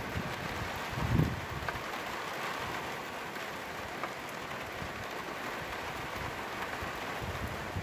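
Steady rain falling on a wet flat roof. Wind buffets the microphone with a low rumble, loudest in a short gust about a second in.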